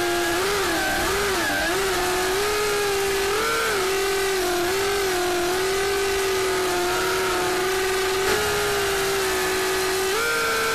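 Cheerson CX-30S mini quadcopter's electric motors and propellers whining in flight, heard through its own onboard camera microphone. The pitch wavers up and down with quick throttle changes at first, holds steadier through the middle, and steps up near the end.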